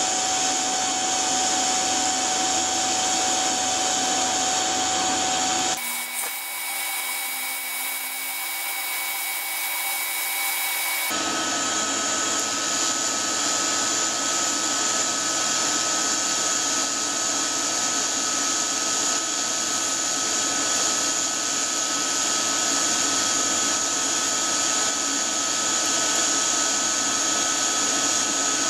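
TIG welding arc from a Harbor Freight Titanium Unlimited 200 inverter welder, hissing steadily with a faint electrical whine while silicon bronze rod is brazed onto thin 16-gauge steel tubing. The hiss thins and changes character from about six to eleven seconds in, then comes back.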